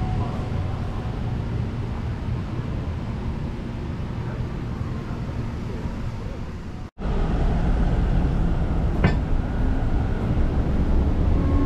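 City street ambience: a steady low rumble of traffic with faint passing voices. After a brief dropout about seven seconds in, the rumble is louder.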